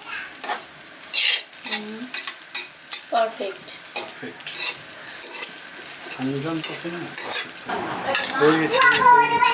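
A metal spatula scrapes and stirs rice around a steel kadai over frying sizzle, in a run of short scraping strokes. A few pitched sounds cut in, the loudest near the end.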